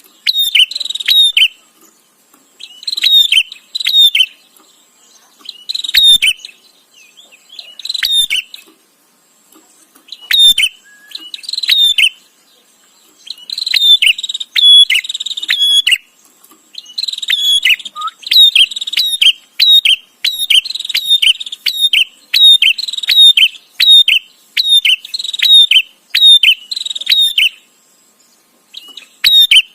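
Prinia (prenjak) calling in loud bursts of rapid, sharp chirps, each burst about a second long, spaced out at first and coming almost back to back from about halfway through.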